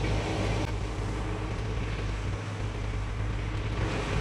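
Steady outdoor rumble and hiss at the shore, wind on the microphone with the surf behind it, with no distinct event standing out.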